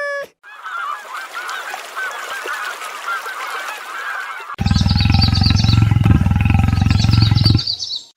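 Animal calls: a chatter of many short, overlapping calls, then, about four and a half seconds in, a much louder, low, buzzing call held for about three seconds that stops abruptly.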